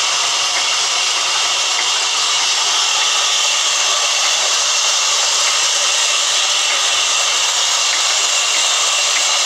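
Sawmill band saw running and cutting lengthwise through a large log, a loud steady hiss of blade in wood over the machine's drive.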